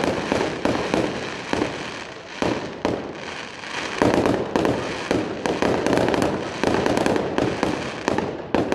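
Fireworks display going off: a rapid run of sharp bangs, several a second, over continuous crackling, with the densest barrage about four seconds in.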